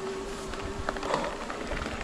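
Santa Cruz Heckler electric mountain bike rolling over a gravel forest road: steady tyre noise with knocks and rattles from the bike. A steady hum runs through the first part and stops about a second and a half in.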